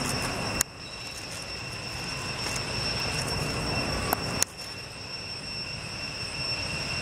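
Steady outdoor background rumble and hiss with a constant high-pitched whine. It is broken twice by a sharp click, after which the noise drops and slowly swells back up.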